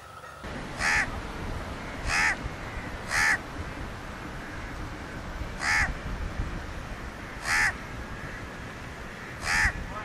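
Crow cawing: six short single caws at uneven gaps of one to two and a half seconds, the first about a second in, over a steady background noise.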